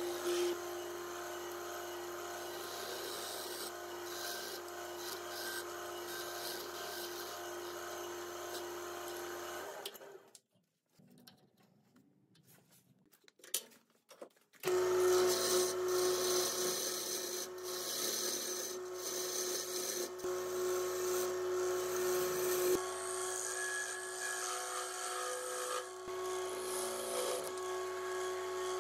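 Jet wood lathe running with a steady motor hum while a drill bit bores into the end of a spinning padauk blank. About ten seconds in the sound drops away to near quiet for some four seconds, then the lathe runs again, with scattered ticks of tool contact on the wood.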